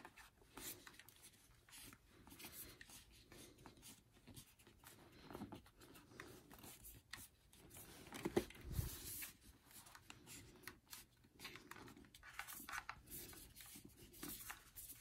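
Faint rubbing and small handling noises of fingers pressing an adhesive-taped mount against a motorcycle helmet shell, with a soft thump about nine seconds in.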